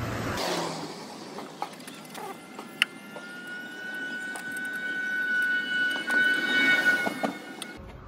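A few sharp metallic clicks as an Allen key works the bolts of a steel luggage-rack bracket. From about three seconds in until near the end, a steady high whine at several pitches from an unidentified source sounds over outdoor background noise.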